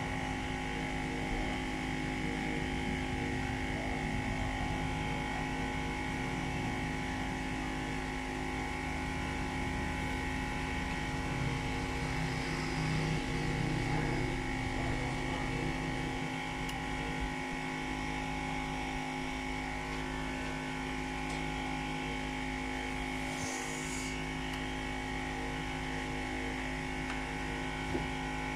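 Steady electrical hum with several fixed tones held throughout, and a single faint click near the end.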